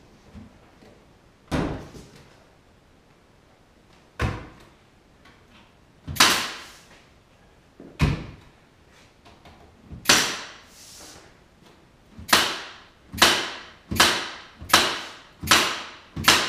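Sharp knocks from cabinet assembly on plywood, each trailing off briefly. A few come spaced about two seconds apart, then a quicker, even run of about one every three-quarters of a second near the end.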